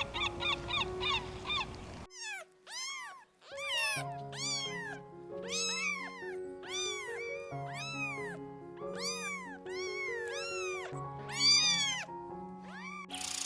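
An animal calling over background music: a quick series of short high-pitched calls, each rising and then falling in pitch, repeated about every half second.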